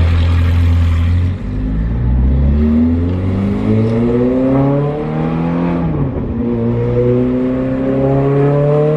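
Ferrari 430 Scuderia's straight-piped V8 heard loud from inside the cabin under hard acceleration. The revs climb steadily through a gear, drop sharply at an upshift just before six seconds in, then climb again.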